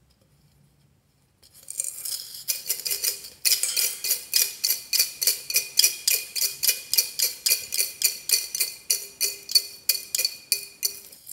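Sequins and glitter rattling inside an aluminium drink can as it is shaken out, in sharp, even strokes about four a second. It starts about a second and a half in and grows louder about two seconds later.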